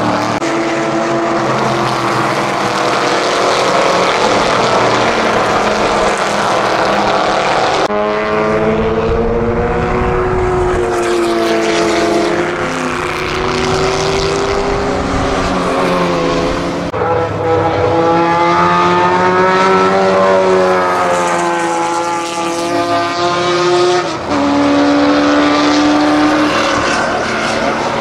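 1960s GT and sports-racing cars accelerating one after another out of a corner at full throttle. Their engine notes rise and fall through the gears, and the sound changes abruptly between passes.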